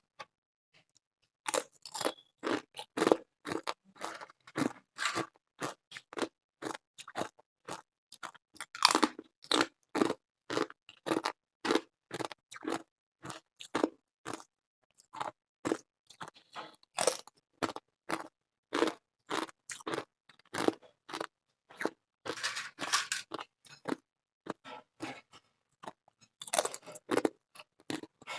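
Thin ice chips being bitten and chewed, a steady run of short crisp crunches about two or three a second, with denser crunching in a few spots.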